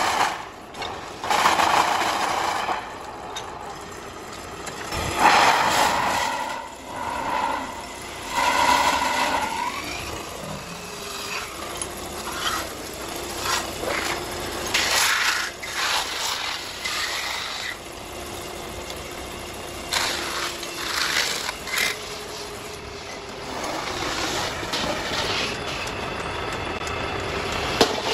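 Metal-spinning lathe running while a long hand-held spinning tool is pressed against the spinning sheet-metal blank to form a bowl: the tool rubs and scrapes on the turning metal in repeated passes, giving short ringing tones, with clicks and rattles from the tool and rest.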